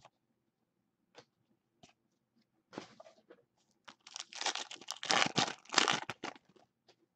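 A foil trading-card pack wrapper being torn open and crinkled by hand: a couple of faint clicks, then from about three seconds in a dense crackling of foil, heaviest over the last three seconds.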